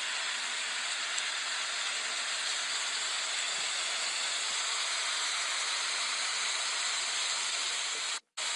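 Torrential rain and rushing floodwater making a steady, even hiss. The sound drops out for a moment near the end.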